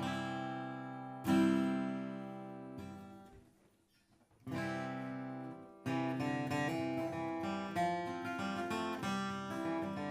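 Martin D-28 Authentic 1937, a rosewood-and-spruce dreadnought acoustic guitar, strummed with a pick. A chord struck about a second in rings out and dies away almost to silence. Strumming starts again about four and a half seconds in and picks up into a busier rhythm.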